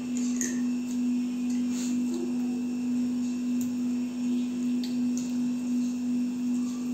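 A steady low hum at one pitch, with a few faint clinks of a fork against a ceramic noodle bowl.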